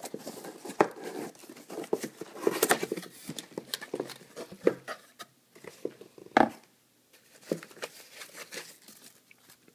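A kit box and its packaging being opened and handled: irregular rustling and crinkling with small clicks and knocks, and one louder knock about six seconds in.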